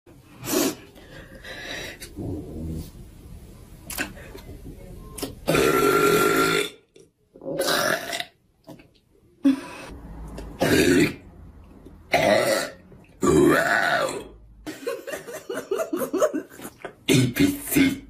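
A woman burping loudly, several separate long burps, the longest lasting about a second, followed near the end by a quick run of short sounds.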